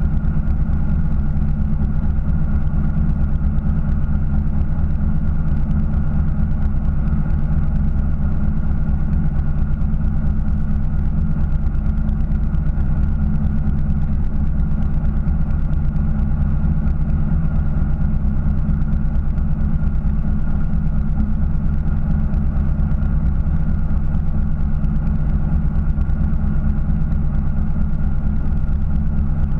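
Fishing boat's engine running steadily at low revs, a constant deep drone that does not change.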